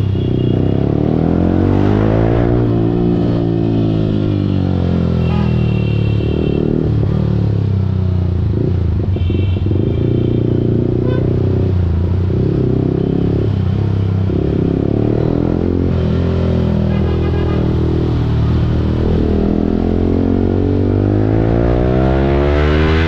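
Yamaha R15 V4's 155 cc single-cylinder engine through an Akrapovic full-system exhaust, running hard while riding. The revs rise and fall repeatedly through gear changes, with a long climb in pitch near the end.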